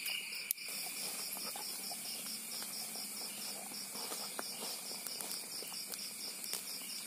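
Night insect chorus: a steady high drone with a fast, regular pulsing call of about five pulses a second over it. A few faint ticks come from the burning wood, with one sharper click about half a second in.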